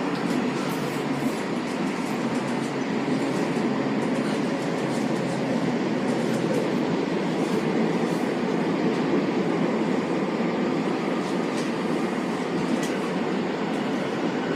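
Sendai Subway Tozai Line train running steadily through a tunnel, heard from inside the car: a continuous rumble of wheels and tunnel air, with a few faint ticks.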